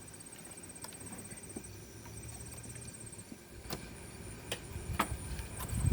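Several sharp clicks and light knocks from a metal machinist tool box being handled. A faint, high insect trill comes and goes in the background.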